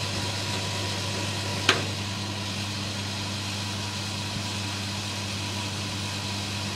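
Electric petrol pump on an aviation fuel tanker running with a steady hum while it pumps fuel through the hose into a light aircraft's wing tank. A single sharp click comes a couple of seconds in.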